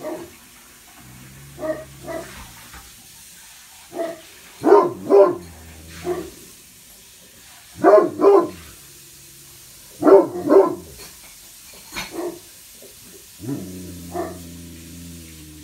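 Great Pyrenees alert-barking on guard at a window, in short runs of two or three barks every two to three seconds.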